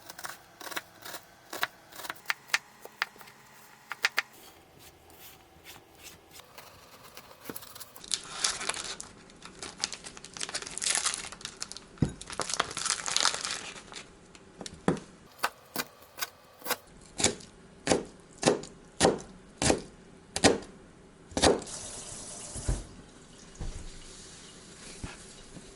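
Kitchen food-prep handling: a string of sharp knocks and clatter, with rustling and crinkling between them. From about the middle there is a run of evenly spaced strokes, roughly two a second.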